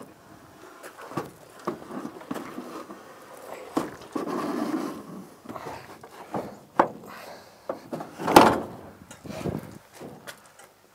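Welded steel deck frame of square tubing and channel knocking and scraping against a pickup truck's bed as it is loaded: a string of clanks and thuds, a scrape about four seconds in, and the loudest bang about eight seconds in.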